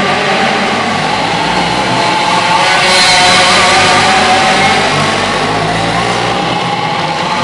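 Several dirt-oval racing karts running at speed on the track, their small engines wavering in pitch as they rev through the turns. The sound swells for a few seconds from about two and a half seconds in as karts pass close by.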